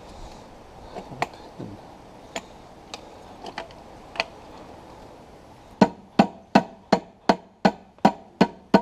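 A few scattered light taps and clinks, then about six seconds in a quick, even run of about nine hammer blows, close to three a second.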